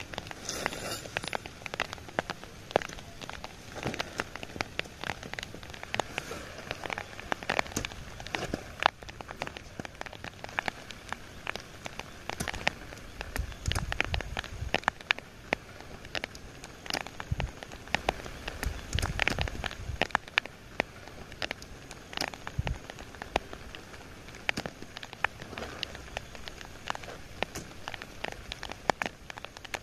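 Rain falling steadily, with many separate drops striking close by in an irregular patter of sharp ticks.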